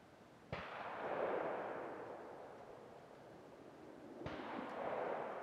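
Two rifle shots about four seconds apart. Each is a sharp crack followed by a long rolling echo that swells and then fades.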